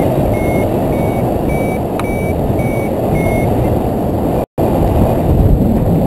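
Strong wind rushing over the microphone of a camera mounted on a tandem hang glider in flight, with a variometer beeping about twice a second, its pitch creeping up and then easing, the sign of the glider rising in lift. The beeps stop about three and a half seconds in, and the sound cuts out for an instant shortly after.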